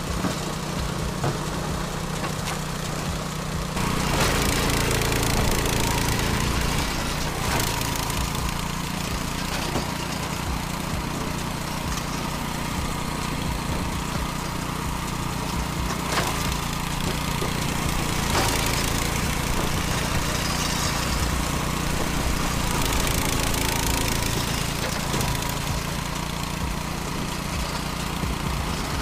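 Engine of a hydraulic log splitter with an 8-blade cutting head, running steadily and working harder in two stretches, about four seconds in and again near the end, as its hydraulics push logs through the blades. A few sharp cracks are heard as logs split.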